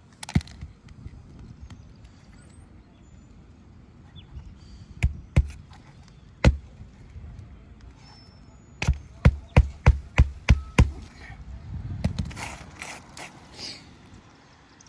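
Sharp knocks of a hand tool on granular asphalt roof shingles: two, then one, then a quick run of about six at roughly three a second, followed by scraping near the end.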